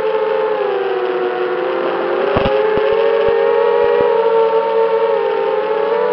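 FPV racing quadcopter's motors and propellers whining steadily, heard from its onboard camera, the pitch sagging and rising with the throttle. A few short sharp clicks come through around the middle.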